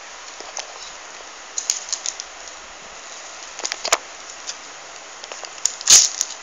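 Paper being handled and crumpled close to a phone microphone: scattered soft rustles and clicks, then one louder crunch near the end.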